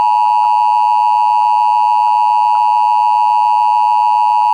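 NOAA Weather Radio warning alarm tone: a loud, steady 1050 Hz beep held without a break, the signal that an emergency alert message follows.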